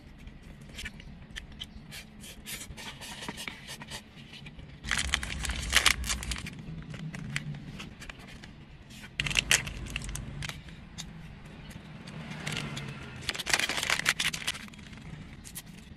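Close-up eating noises: slurping and chewing of spicy cup noodles, and the crinkling and tearing of plastic snack wrappers. Three louder stretches of a second or two each come about five, nine and thirteen seconds in.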